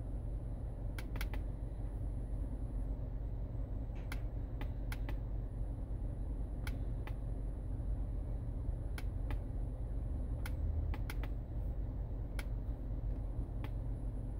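Scattered sharp clicks of a laptop's touchpad and keys, about a dozen at uneven intervals, over the low steady rumble of the car's engine idling, heard inside the car's cabin.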